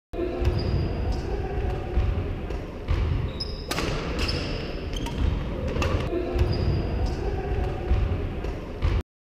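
Badminton doubles rally on a hardwood gym court: sharp racket strikes on the shuttlecock, sneakers squeaking and footfalls on the floor. The sharpest strike comes nearly four seconds in, and the sound cuts off abruptly near the end.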